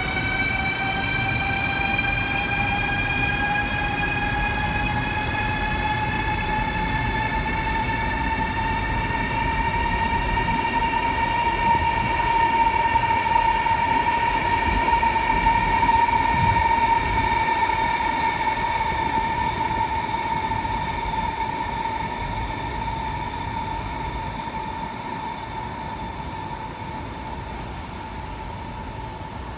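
High-speed electric train pulling through a station, its traction motors whining in a stack of tones that rise slowly in pitch for the first dozen seconds as it gathers speed, then hold steady over a low rumble of the running gear. The sound swells to its loudest around the middle and fades toward the end.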